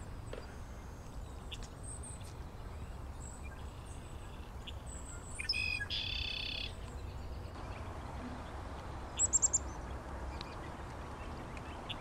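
Wild birds calling: scattered faint high chips, a louder, harsher call lasting about a second just past the middle, and a quick run of four high, falling notes near the end.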